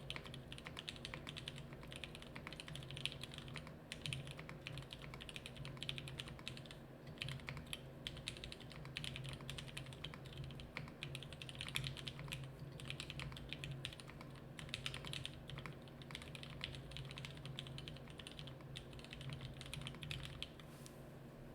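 Typing on a TKC Portico mechanical keyboard with lubed Gateron Yellow linear switches, lubed and modded stabilisers, an FR4 plate with silicone and foam inside, and dye-sublimated keycaps: a steady, irregular stream of keystrokes that stops near the end.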